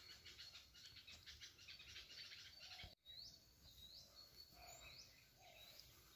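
Faint wild bird calls: a rapid, pulsing high chirping at first, then, after a brief break about halfway through, a bird repeating short rising chirps about every half second.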